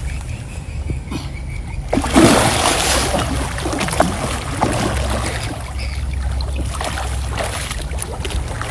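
Water splashing and sloshing as a person wades chest-deep and a hooked fish thrashes in a muddy pond, with irregular splashes and a louder burst about two seconds in.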